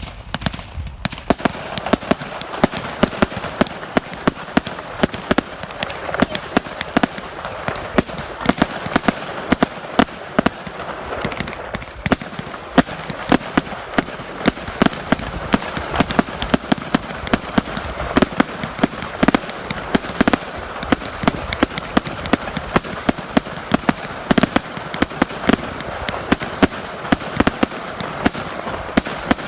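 A 100-shot firework cake firing: a rapid, continuous stream of sharp bangs, several a second, over a steady crackling hiss.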